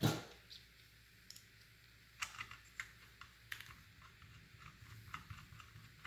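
Hands handling PC build parts: one sharp knock right at the start, then scattered light clicks and taps from about two seconds in.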